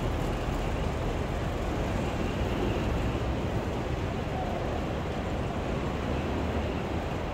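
Airport luggage trolley rolling over a tiled terminal floor: a steady rumble of its wheels, with faint voices in the hall behind.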